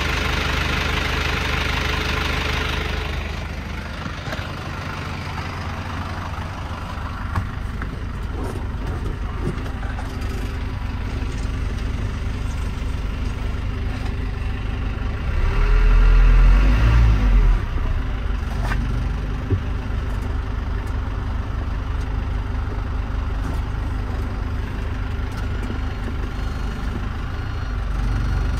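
A 2006 Hino cargo truck's diesel engine idling steadily, heard close up by the front wheel well at first and then from inside the cab. About halfway through it is revved once, briefly rising in pitch, and then settles back to idle.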